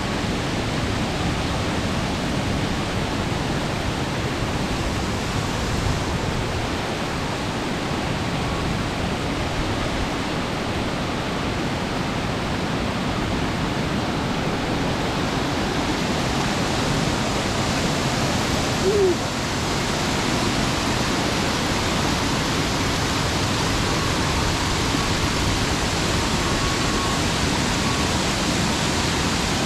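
Steady rush of water running down the slides and their outlet channels into a splash pool. A brief short squeak comes about two-thirds of the way in.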